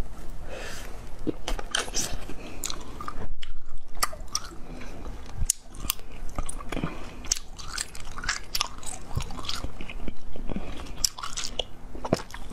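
A person biting into and chewing a frozen jelly cube, with irregular sharp crunches and mouth sounds throughout.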